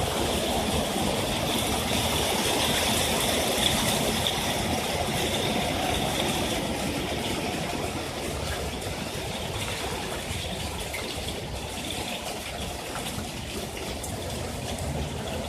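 Hail falling: a dense, continuous clatter of many small hailstones striking, easing off a little in the second half.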